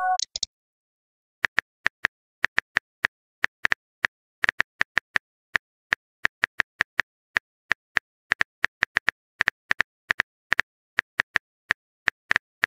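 Phone keyboard typing sound effect: short, sharp clicks tapped out irregularly, several a second, with a brief pause about a second in.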